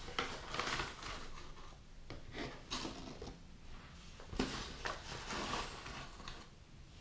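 A tablespoon scooping flour and tipping it into the cake mix: irregular soft scrapes, rustles and a few light taps.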